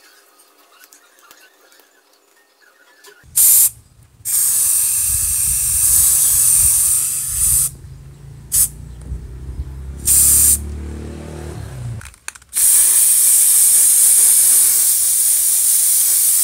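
Aerosol spray paint can spraying in separate spurts after a quiet start: a couple of short puffs and longer sprays of several seconds each, steady hissing while the nozzle is held down.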